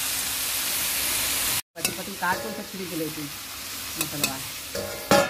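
Snake gourd, potato and onion pieces sizzling in a hot metal kadhai. After a cut, a metal spatula stirs and clicks against the pan. A short voice is heard near the end.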